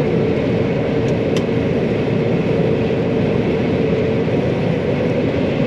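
John Deere 9500 combine running steadily: an even machine drone carrying a steady hum, with a couple of faint clicks about a second in.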